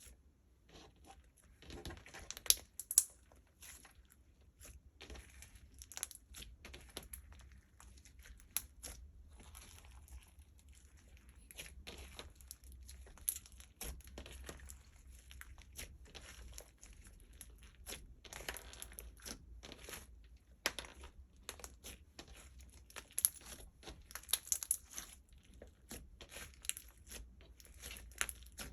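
Slime being worked by hand: a continuous run of sticky crackles and small popping clicks, with a few louder snaps.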